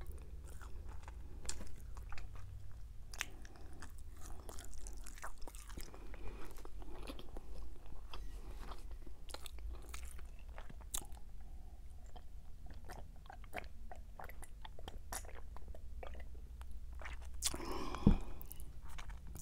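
Close-miked chewing and wet mouth smacking of someone eating roasted chicken and fettuccine Alfredo, many small irregular clicks, with a sip from a mug about midway.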